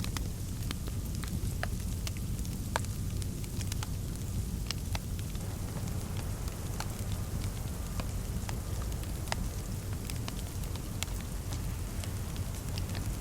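Fireplace fire crackling, with many small irregular pops and snaps over a steady low rumble.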